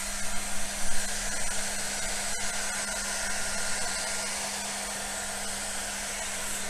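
Electric heat gun running steadily, a constant rush of air over a low hum, as it heats the sealant along the seam of a scooter's footplate to soften it.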